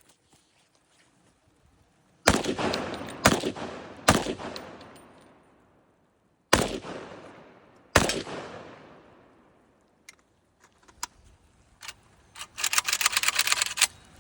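Century Arms Draco AK-pattern pistol firing five loud single shots, about a second or more apart, each with a long fading echo. A few faint clicks follow, then near the end a fast rattle of quieter cracks.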